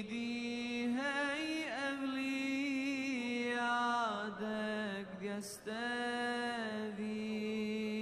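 A solo male voice chanting in Arabic, holding long notes and sliding ornamentally between pitches, with a brief pause for breath about five and a half seconds in.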